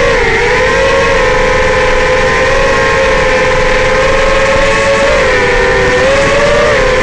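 FPV racing quadcopter's four Racerstar BR2205 2600KV brushless motors spinning three-blade Dalprop Cyclone props, a steady whine of several close tones. The pitch sags and recovers with the throttle about five seconds in.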